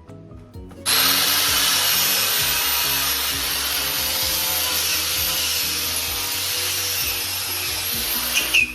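A power tool running steadily at full speed with a loud hiss and a wavering high whine, starting suddenly about a second in and stopping near the end, used to clean up a worn steel skid steer bucket; background music plays underneath.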